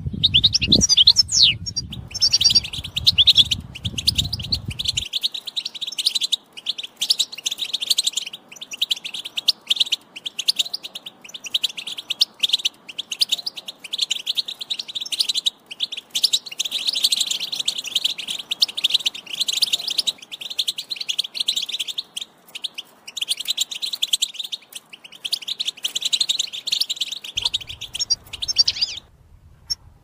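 European goldfinch song: rapid, continuous twittering and trilling with short breaks, stopping about a second before the end. A low rumble runs under the first few seconds.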